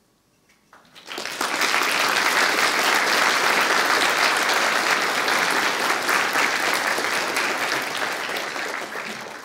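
Audience applauding after a talk: clapping starts about a second in, swells quickly, holds steady and dies away near the end.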